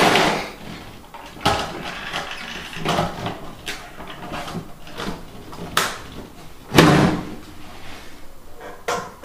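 Tin lunch-box body of a homemade airsoft claymore being handled: its metal lid and rat-trap latch clack shut in a series of sharp knocks against the plywood floor, the loudest about seven seconds in.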